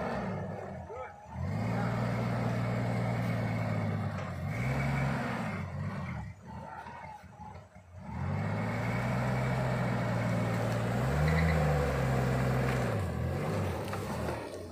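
Engine of an old four-wheel-drive vehicle loaded with sawn timber, crawling along a rough forest track. The engine holds steady revs, eases off and picks up again several times, dropping away for a couple of seconds in the middle before pulling again.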